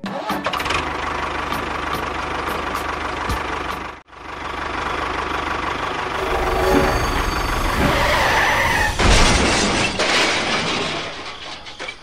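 A vehicle engine running steadily with a low pulsing rumble, cutting out abruptly about four seconds in and then building up again.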